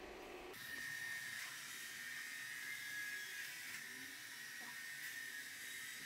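Ecovacs Deebot T20 Omni robot vacuum cleaner running as it sweeps up debris: a steady high whine over a hiss of suction, starting abruptly about half a second in.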